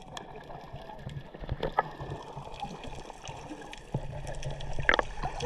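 Sea water heard underwater through a submerged camera: a muffled low rumble of moving water with scattered bubble clicks and pops from swimmers' kicks, growing louder about four seconds in.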